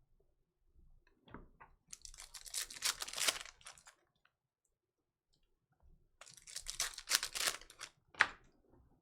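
Foil trading-card pack wrappers being torn open and crinkled, in two crackling bursts of a second or two each, with a few small clicks before the first.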